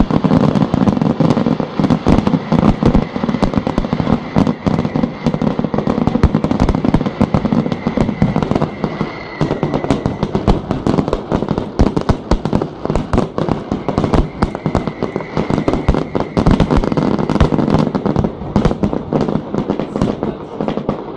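Fireworks display: aerial shells bursting in a rapid, continuous barrage of bangs.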